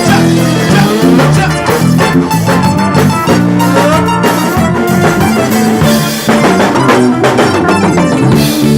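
A live gospel band playing a song, with the drum kit (kick, snare and rimshots) out front over sustained bass notes and other instruments.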